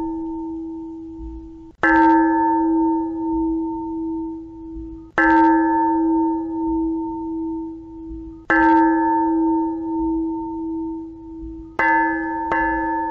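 Thai Buddhist temple bell struck to call monks and laypeople to morning chanting. Three single strokes about three seconds apart, each ringing on and fading, then quicker strokes begin near the end.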